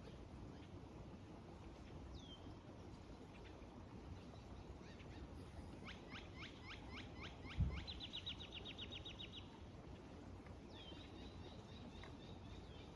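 Small birds calling: a few short falling whistles, then a run of quick notes and a rapid high trill about halfway through, with more repeated notes near the end. A single low thump comes just before the trill.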